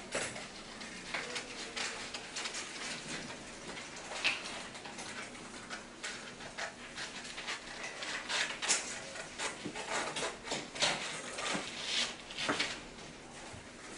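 Students' paper sheets rustling and crinkling, with many short snips and clicks from scissors and desk handling scattered throughout.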